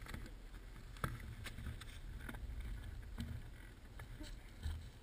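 Footsteps crunching in snow at an irregular pace, with a low steady rumble underneath.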